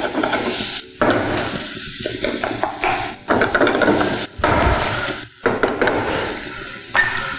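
Wooden spatula stirring and scraping chopped tomatoes and onions around a sizzling frying pan, in runs of strokes with short breaks between them. The tomatoes are being sautéed until they mash down for a tomato thokku.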